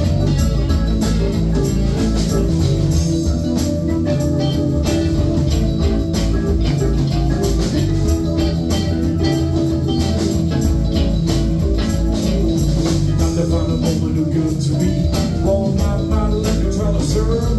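Live rock band playing at full volume: electric guitars, keyboards, bass and drums keeping a steady beat, with a woman singing into the microphone.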